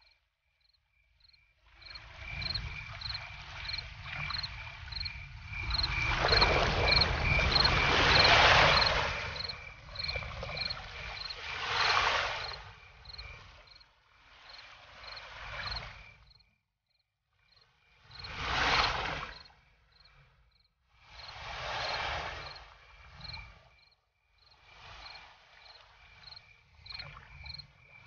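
Outdoor nature ambience: a small creature chirping steadily, about two chirps a second. A rushing noise swells and fades over it every few seconds, loudest about a quarter of the way in.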